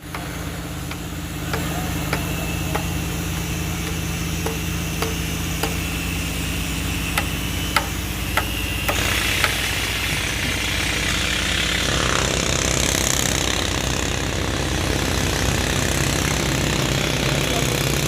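Construction site noise: a machine engine running steadily, with sharp knocks every half second to a second during the first half. After about nine seconds a louder hissing noise joins the engine.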